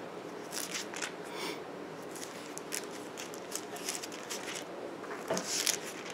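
Bible pages being turned one after another, a run of soft crisp rustles and flicks as the book is leafed through to find a passage, with a louder rustle about five and a half seconds in.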